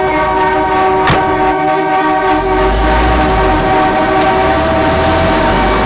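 A loud, sustained chord of steady, horn-like tones held without change, most likely a synthesizer pad in a film score. A sharp click comes about a second in, and a deep low note joins about two and a half seconds in.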